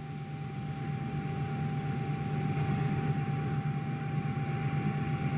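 A steady low hum with hiss and a faint steady high tone, growing gradually louder.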